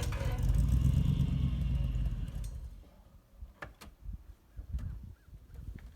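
Land Rover engine running, then switched off about two and a half seconds in. A few light clicks and knocks follow.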